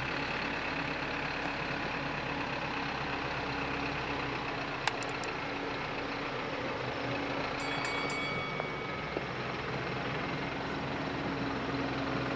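Isuzu NPS 4x4 truck's diesel engine running at low revs as it crawls along a dirt track. A sharp click about five seconds in, and a quick run of clicks about eight seconds in.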